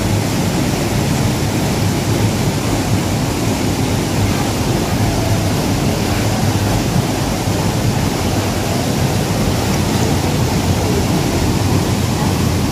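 Small waterfall and shallow river rapids rushing steadily, a loud, even roar of water.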